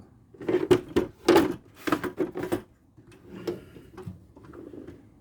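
Tools and cases being handled in a toolbox: a quick run of sharp knocks and clatters, then softer scattered knocks and rustling.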